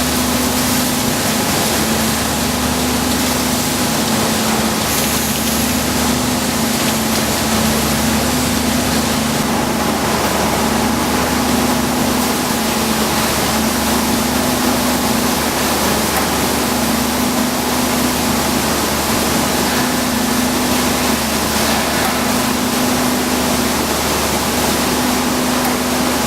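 Rice harvesting machine running steadily: a loud, even machine noise with a low hum that swells and fades every two to three seconds.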